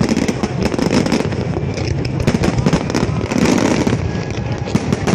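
Fireworks going off in quick succession: a dense, continuous run of bangs and crackles.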